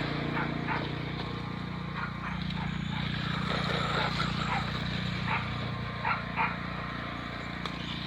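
Steady low drone of a toy RC monster truck's small electric motor running, with short, sharp yelps of a dog scattered over it.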